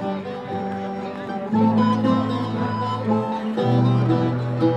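A live ensemble of acoustic guitars playing a tune, a melody over held chords, with deep low notes joining about one and a half seconds in.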